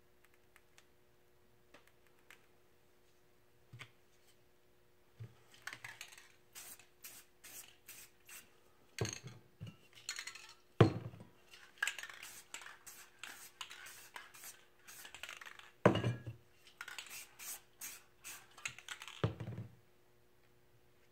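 Hand work on a spray-paint board: a busy run of light scratching, rustling and clicking against the painted surface, with four louder knocks. It begins about five seconds in and stops shortly before the end.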